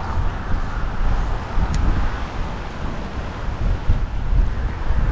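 Wind buffeting the microphone over the steady rush of road traffic crossing the adjacent highway bridge.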